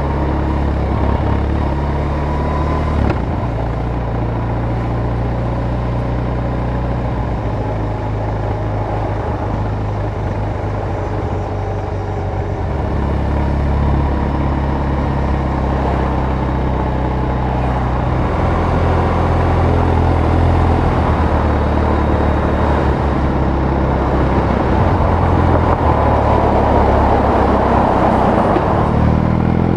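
BMW R18's 1802 cc boxer twin running under way, its note changing pitch in steps several times, with a rush of wind and road noise that grows louder toward the end as the revs climb.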